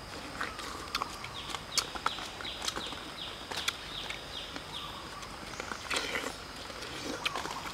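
Close, wet eating sounds as watermelon is bitten and chewed: scattered sharp clicks and smacks. Behind them a bird calls a quick series of about nine short, high, falling notes.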